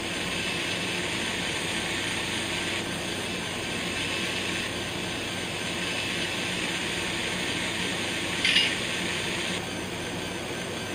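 Sound decoder in an N scale F7A diesel model playing a diesel locomotive idling through the model's tiny speaker, a steady mechanical running sound with hiss. About eight and a half seconds in there is one short, louder burst.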